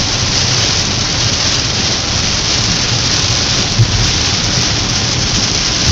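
Heavy rain beating steadily on a moving car, heard from inside the cabin, with a constant low rumble of the car on the wet road underneath.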